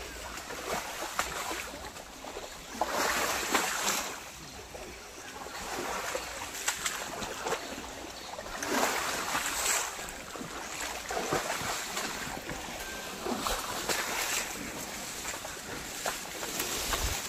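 An elephant wading through a shallow stream, water sloshing and splashing around its legs in uneven surges every few seconds, with leafy branches rustling and brushing past near the end.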